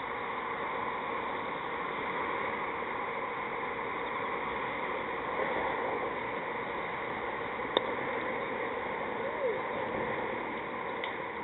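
A single sharp crack of a cricket bat striking the ball, about eight seconds in, over a steady hiss of outdoor ambience.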